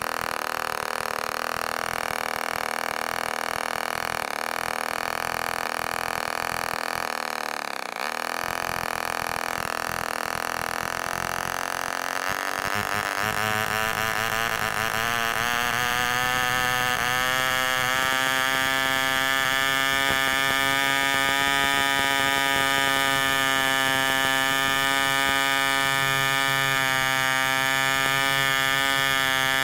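Super Hurricane 24 two-stroke spark-ignition model engine running steadily, driving a 10x6 wooden prop. About halfway through, its pitch climbs over several seconds as it picks up revs, then holds steady, faster and louder, at around 7,500 RPM.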